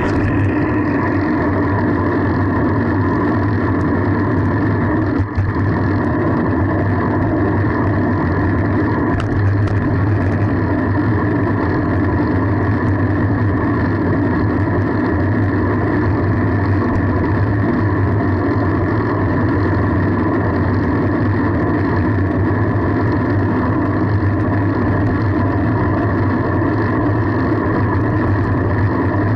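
Steady droning rumble of wind and road noise on a camera riding along on a fixed-gear bicycle, with no letup.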